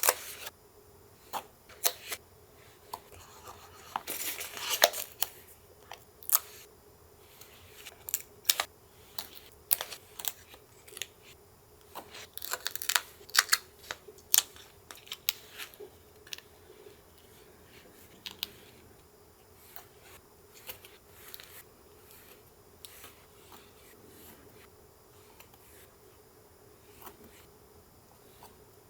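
Paper crafting at close range: scattered sharp snips and clicks of scissors cutting paper and of paper being handled, with a longer rasping stretch of cutting or tearing about four seconds in. The snips are busy in the first half and sparser later.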